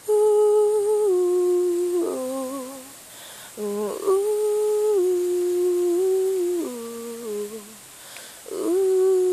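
A woman humming a wordless melody with no accompaniment, in three phrases of held notes that each step down in pitch, with short breaks between phrases.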